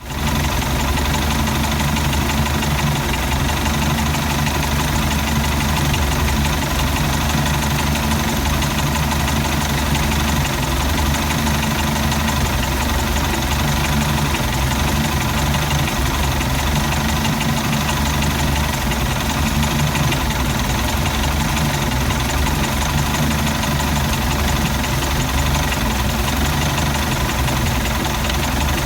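MerCruiser 3.0 four-cylinder sterndrive engine idling with a rough idle.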